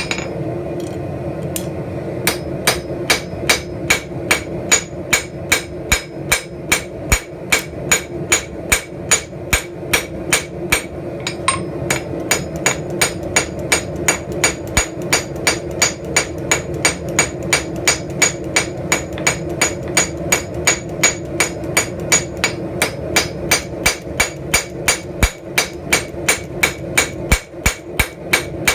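Hand hammer striking hot steel on an anvil in a steady rhythm of about three blows a second, each blow ringing with a bright metallic ping, over a steady low hum.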